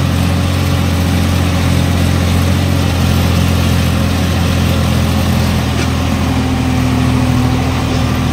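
Farm tractor's diesel engine running steadily as the tractor is driven, heard from the driver's seat: an even, low drone, with a slightly higher hum growing stronger about six seconds in.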